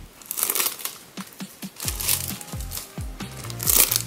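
Clear plastic wrapping crinkling as it is handled, in a few bursts, the loudest near the end.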